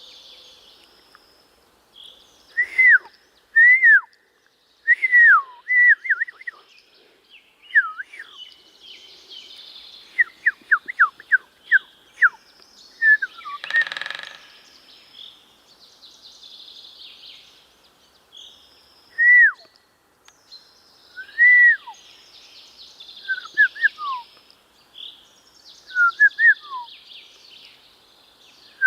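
Bird song: loud, clear whistled notes that slide down in pitch, given singly or in quick runs of several, over a fainter background chorus of other birds. A short noisy burst comes about halfway through.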